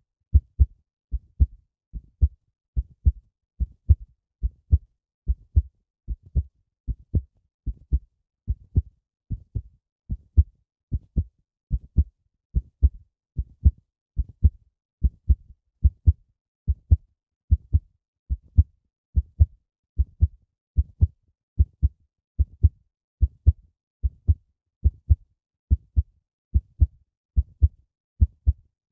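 Heartbeat recording: steady lub-dub double thumps, a little more than one beat a second.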